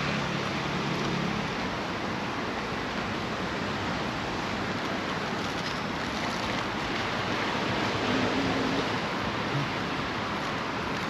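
Steady rush of sea surf, waves washing onto a beach.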